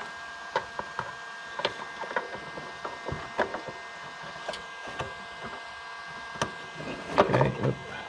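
Small scattered clicks and taps of a hand working a new blower motor resistor and its wire connectors into place in the engine bay, over a faint steady hum, with a louder burst of handling noise near the end.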